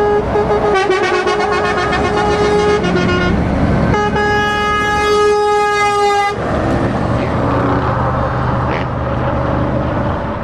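Truck horn sounded in two long blasts, the first about three seconds and the second about two, with a short break between. After the horn, a heavy truck's diesel engine is heard pulling past.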